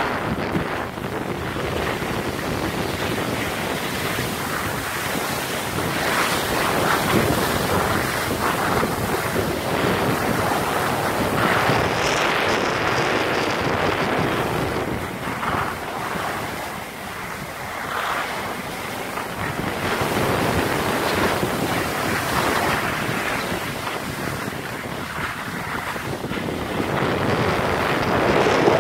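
Wind buffeting a handheld phone's microphone over the hiss and scrape of skis sliding on snow during a downhill run, swelling and dipping.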